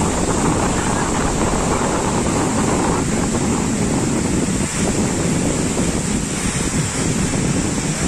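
The Ouzoud Falls' cascades pouring down the rock face: a steady, loud rushing of water.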